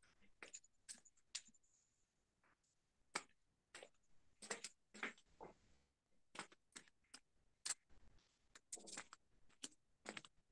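Faint computer mouse clicking: about twenty sharp clicks at uneven intervals, some in quick pairs.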